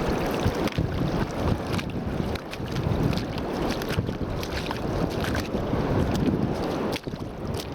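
Fast-running shallow stream rushing and splashing while someone wades through it, with wind buffeting the microphone.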